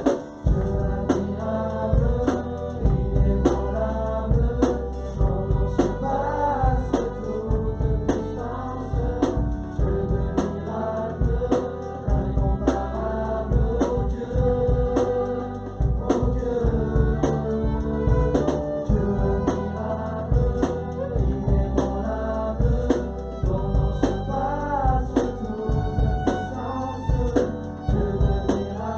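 Music with singing over a steady drum beat and heavy bass.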